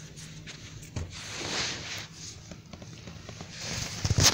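Rustling and knocking from a phone being handled and moved around close to fabric and carpet, with a few heavier thumps near the end.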